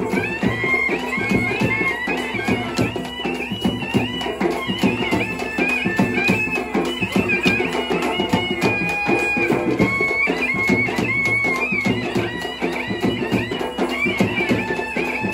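Traditional South Indian wedding music: a reedy double-reed wind instrument plays a bending, ornamented melody over fast, steady drumming.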